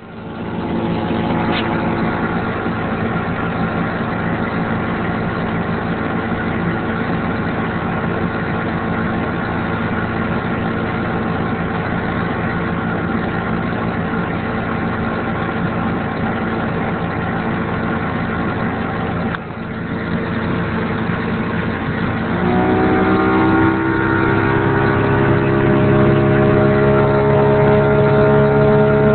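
The engine of a 1986 Bayliner Capri 1600 runs steadily under way. About three-quarters of the way through it is throttled up, and its pitch climbs slowly and gets a little louder.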